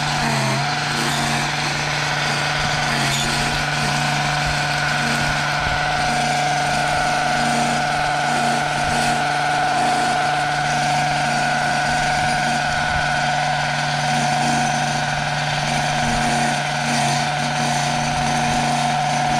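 String trimmer's small engine running steadily, holding one even pitch as it cuts grass along a fence line.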